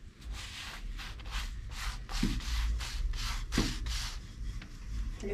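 Thin spring roll wrapper rubbed and pushed around on a dry, unoiled cast-iron pan, a rhythmic dry scraping of about four strokes a second.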